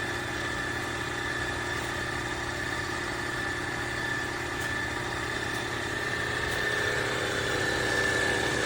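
Tineco iFLOOR 3 Breeze wet-dry vacuum mop running its self-cleaning cycle in the dock, with the suction motor and brush roller giving a steady whine. It gets a little louder near the end.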